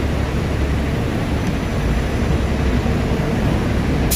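Low, steady rumble of a large coach's engine idling, which stops abruptly at a cut near the end.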